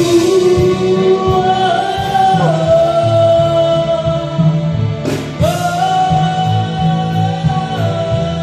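Live band music: a singer holding long sung notes over electric guitar, bass and drums, with the pitch stepping up a couple of seconds in and a new held note starting about five seconds in.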